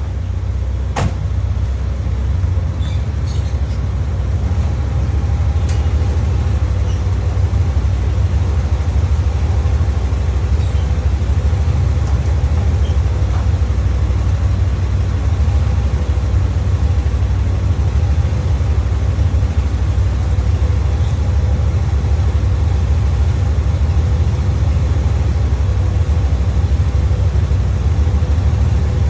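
Toyota Starlet KP61's four-cylinder engine idling steadily after sitting unused for a long time, building up a little over the first few seconds and then holding even. A single sharp click sounds about a second in.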